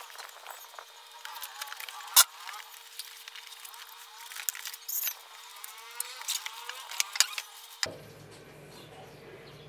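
Cardboard box and paper packaging being handled as a subwoofer is unpacked: scattered rustles and clicks, with one sharp knock about two seconds in. About eight seconds in this cuts to quiet background music.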